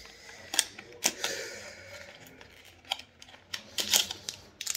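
Small cardboard box of a disposable vape being opened by hand: sharp clicks and taps of the flaps, a rasping slide of the foil-wrapped device out of the box starting about a second in, then a quick run of small clicks and crinkles near the end.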